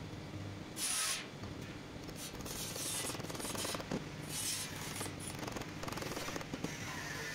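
Irregular rubbing and scraping strokes of hand work on a part, each lasting about half a second.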